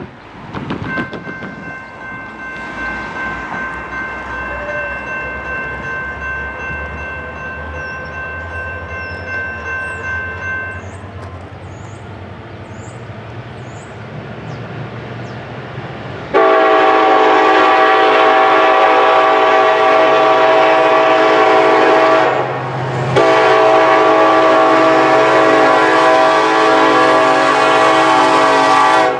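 Freight train led by an EMD SD70ACE diesel locomotive approaching with a low rumble. Its air horn sounds first as a fainter steady chord for about ten seconds. Past the halfway point it becomes much louder in two long blasts separated by a brief break.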